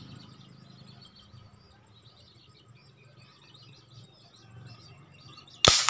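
A homemade PVC alcohol gun fires a single sharp shot of an 8 mm steel ball near the end, after a few seconds of birds chirping.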